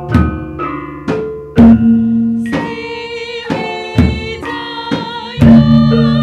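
Javanese gamelan ensemble playing: struck bronze metallophones ringing on under regular drum and gong strokes, the deepest and loudest about one and a half and five and a half seconds in. A wavering higher melody line joins about two and a half seconds in.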